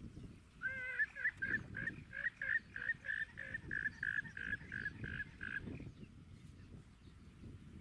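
An animal calling: a rapid run of about fifteen short, alike, fairly high notes, about three a second, starting about a second in and stopping after about five seconds.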